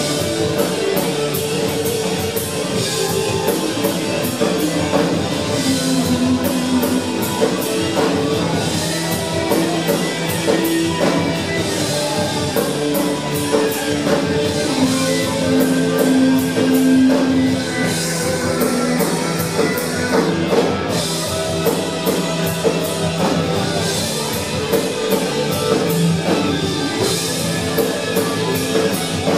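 A rock band playing live, with drums keeping a steady, even beat of cymbal strokes under sustained guitar.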